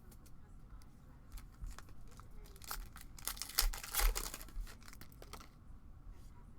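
Foil trading-card pack wrapper being torn open and crinkled, with light clicks of cards being handled. The tearing and crinkling is loudest from about three to four and a half seconds in.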